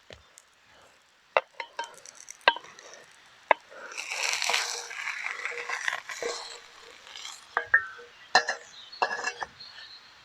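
A string of sharp clinks and knocks of small hard objects being handled, with about two seconds of hissing rush in the middle.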